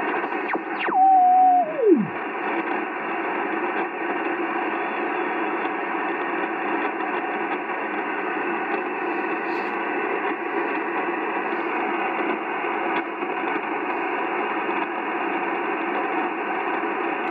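Receiver audio from a Yaesu FT-920 HF transceiver tuned across the 40-metre band in sideband mode: a steady bed of band noise and hiss. About a second in, a loud whistle sweeps down in pitch as the tuning dial passes a carrier, holds briefly, then drops away low by about two seconds. The hiss carries on unchanged after that.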